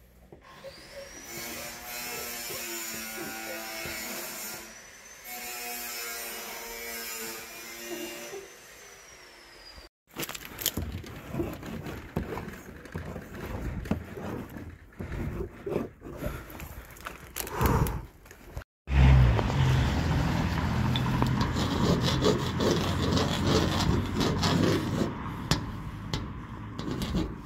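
Correction pen tip rubbing and scraping across a painted wall as tags are drawn, over outdoor background noise. A steady low engine-like hum sits under the last part.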